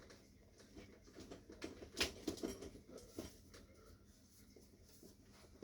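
Faint rustling and light taps of hands and clothing moving during hands-on bodywork, with one sharper click about two seconds in.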